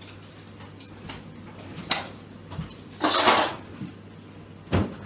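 Dishes and cutlery clattering: a few light clinks, a louder clatter lasting about half a second around three seconds in, and a sharp knock near the end.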